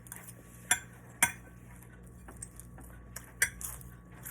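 Cutlery clinking against a plate or dish while eating: three sharp clinks, about a second in, just after, and again near the end, with lighter taps between.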